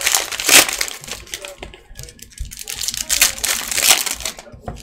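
Foil and plastic trading-card pack wrappers crinkling and tearing as packs are ripped open and handled. The sound comes in irregular bursts, with a quieter stretch about two seconds in.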